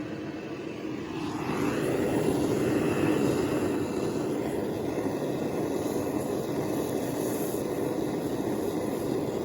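Jeweller's soldering torch flame blowing steadily, heating the flux on the piece before the silver solder pallions go on; it grows a little louder about a second or two in.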